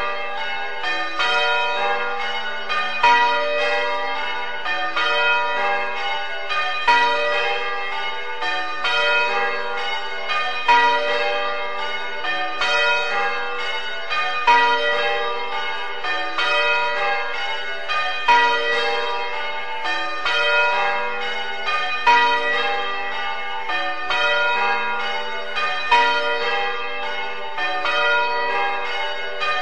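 A ring of church bells rung full circle in changes: a continuous run of strikes that repeats in rows, with a louder stroke about every two seconds.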